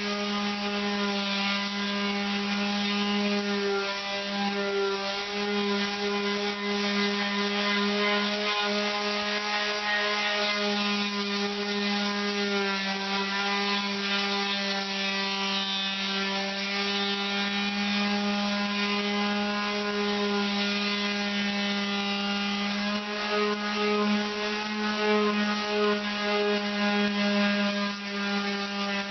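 Power sander running steadily on a seam of lead-free body solder over sheet steel: a steady motor whine over a gritty sanding hiss. Its pitch sags a little about halfway through, as if loaded down.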